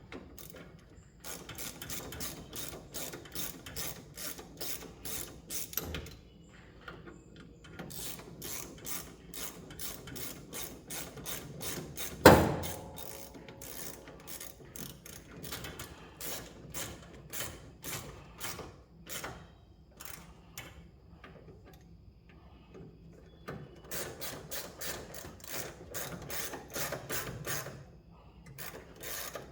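Hand ratchet wrench clicking in quick runs with short pauses between, driving fasteners while a replacement brake master cylinder is bolted on. A single sharp knock about twelve seconds in.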